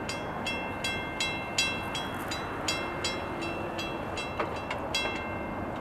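Railroad grade crossing warning bell ringing in rapid, even strokes, about two and a half a second, as the crossing gates come down to warn of an approaching train. A steady low rumble lies underneath.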